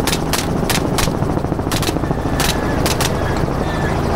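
A rapid, irregular volley of gunshots, about eight in the first three seconds, over the steady drone of a helicopter's rotor and engine.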